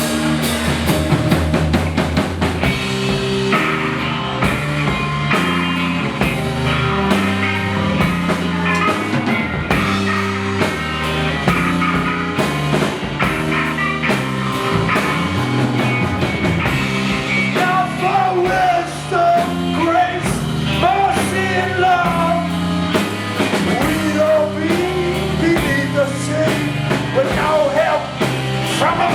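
Rock band music: drum kit, bass and guitars playing without lyrics after the chorus, with a bending, wavering lead line coming in about two-thirds of the way through.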